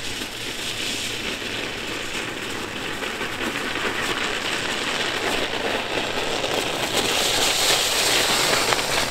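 Mountain bike tyres crunching and crackling over packed snow as the bike rolls toward the listener, slowly getting louder as it comes close and passes.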